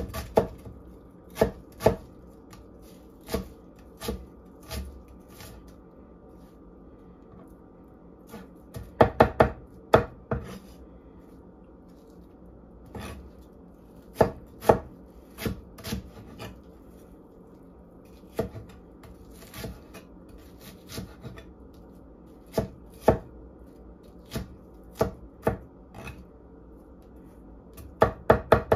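A wide-bladed chef's knife chopping an onion on a wooden butcher-block board: sharp, irregular knocks of the blade on the wood, with a few quick runs of cuts in between.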